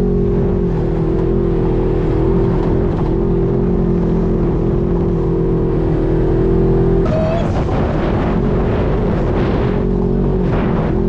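UTV engine running steadily at cruising speed while driving on a sandy trail. About seven seconds in the steady engine tone breaks off briefly and a rougher, noisier stretch follows before the tone settles back.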